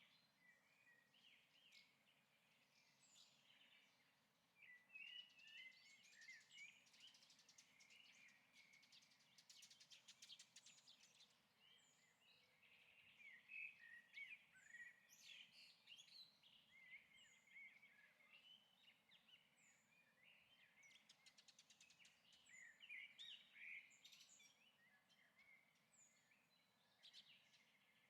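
Faint birdsong: several small birds chirping with many short, quick calls, busier in a few stretches, from a stock birds-chirping sound-effect track.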